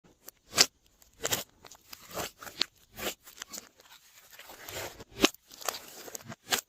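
Glossy slime being pressed and worked by hand, giving sharp, irregular clicking pops, roughly two a second, with soft sticky squelching between them.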